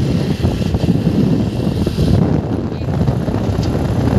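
Wind buffeting the microphone of a moving vehicle on the road, a loud, steady rumble without pause.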